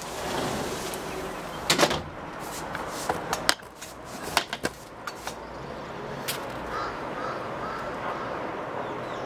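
Handling noise from a hand-held camera being moved: a scatter of sharp clicks and knocks over a steady outdoor hiss, with a faint bird call about seven seconds in.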